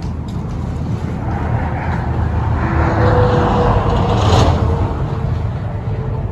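Strong wind buffeting the microphone: a deep, rushing rumble that swells into a louder gust about three to four seconds in.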